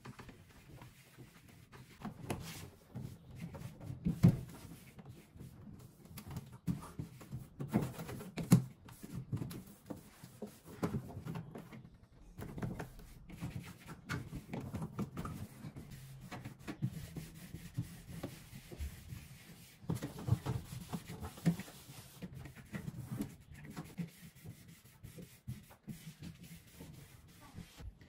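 Cloth scrubbing the plastic walls and shelves inside a refrigerator: irregular rubbing strokes, with a few louder bumps about four and eight seconds in.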